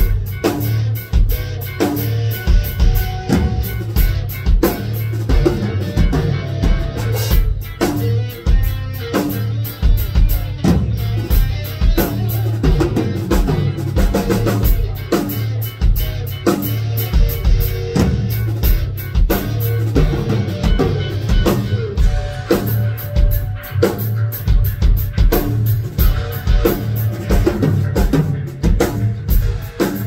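Live instrumental progressive rock: a busy drum kit with many hits over a pulsing bass line, with guitar parts above.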